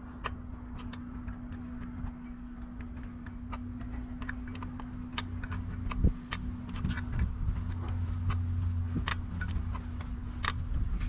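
Irregular metallic clicks and taps of hand tools working on boat engine parts, over a steady low hum.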